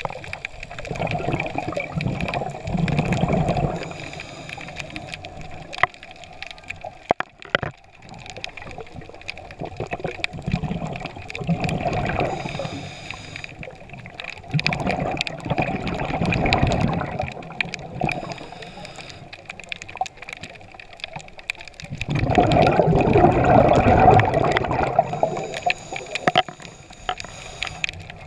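Scuba diver breathing through a regulator underwater: every few seconds a loud rush of exhaled bubbles gurgling past, with quieter stretches between breaths. A few sharp clicks about seven seconds in.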